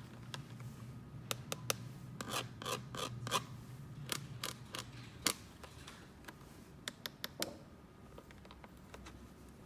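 Small toy pieces and their packaging being handled close up: a quick run of sharp clicks and short scratchy rubs, thinning out to a few scattered ticks after about five seconds.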